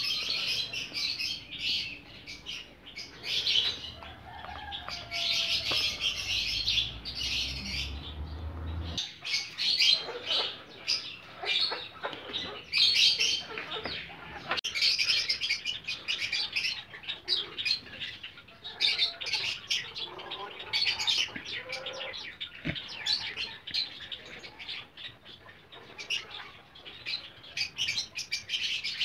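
Small birds chirping rapidly and continually in high, busy twitters. A low rumble sits underneath for the first nine seconds or so, then stops abruptly.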